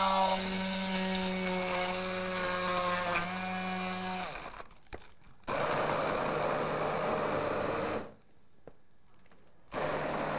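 Arçelik HBS 9285 CI stick blender blending beetroot, fruit and ice into a smoothie. It hums steadily for about four seconds and stops. It runs again for about two and a half seconds with a rougher, lower sound, stops, and starts up once more near the end.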